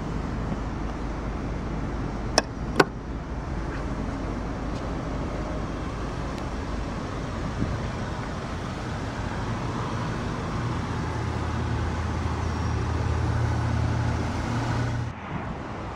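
Two sharp clicks about half a second apart, some two and a half seconds in, as the car's fuel filler door is pushed shut, over a steady rush of wind on the microphone. A low vehicle hum grows louder near the end and cuts off suddenly.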